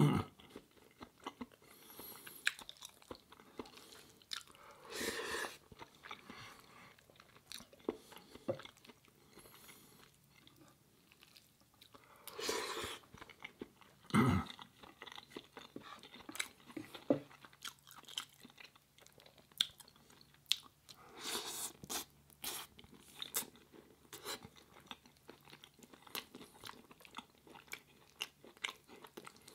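A person chewing and biting food, with crunching and scattered short mouth clicks at irregular intervals, while eating vegan curry with onion basmati rice.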